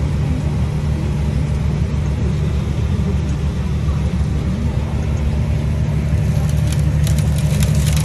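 A vehicle engine running steadily with a loud, low drone. A few light clicks come in near the end.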